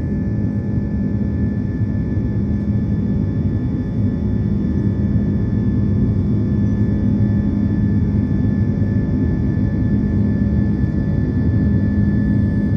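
Jet airliner cabin noise during the climb after takeoff: a steady engine drone and rush of air, with a low hum and a thin, higher whine held at constant pitch.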